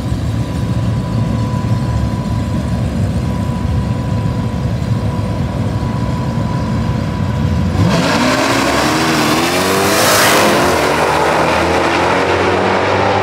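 Supercharged 6.2-litre Hemi V8s of a Dodge Challenger Hellcat Redeye and a Demon 170 rumbling at the drag-strip start line, then, about eight seconds in, launching at full throttle, the engine note climbing steeply as both cars pull away down the track.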